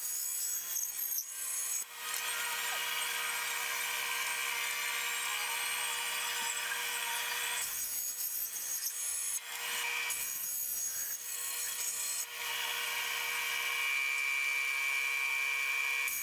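Small bandsaw running and slicing a laminated wooden ring into thin wafers. The steady machine sound dips briefly a few times, around 8 to 9 seconds in and again near 12 seconds, as the cuts change.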